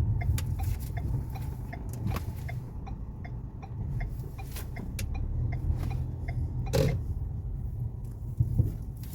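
Ford Fusion driven on a rough road, heard from inside the cabin: a steady low rumble with a light ticking about three times a second and a few sharp knocks from the front end, the loudest about two-thirds of the way in. The knocks are the noise the car came in with, which other shops blamed on the electric steering rack and which worn stabilizer-bar bushings and links only partly explain.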